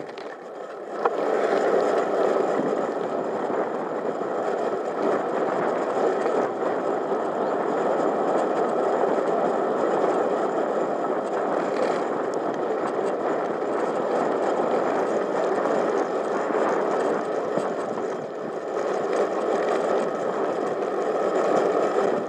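Steady rush of wind on the microphone and tyre noise from a bicycle riding along a tarmac path, heard from a camera mounted on the bike; it grows louder about a second in and then holds steady.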